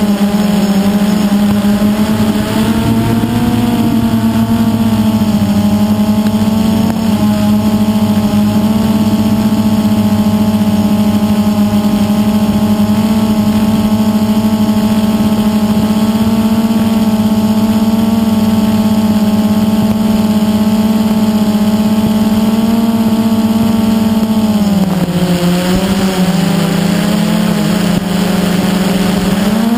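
Multirotor drone's motors and propellers humming steadily, close to the microphone. The pitch drops about 25 seconds in and rises again near the end as the motors change speed.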